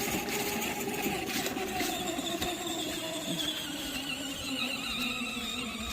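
24-volt electric ride-on toy car's motors whining steadily, the pitch slowly sinking through the second half.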